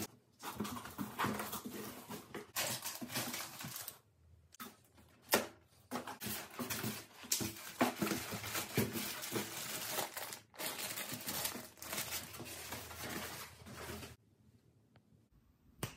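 TV packaging being handled: cardboard box flaps and a polystyrene packing insert scraping and rubbing, with plastic bags crinkling, in a run of rustling broken by a couple of short pauses and a sharp knock about five seconds in. The handling stops about two seconds before the end.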